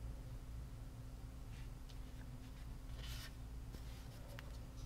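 Pen writing on a paper tracking card, soft and scratchy, with a louder paper rustle about three seconds in as the card is moved, over a faint steady low hum.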